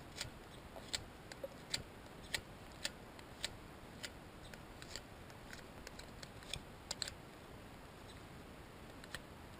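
Box cutter blade whittling a speckled alder stick: short, faint scraping clicks as the blade shaves the wood, irregularly spaced at about one every half second, fewer near the end.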